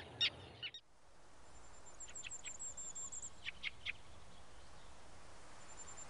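Two short tern calls right at the start, then woodland birdsong: a thin, very high trill of quick repeated notes, twice, with several short sharp call notes between.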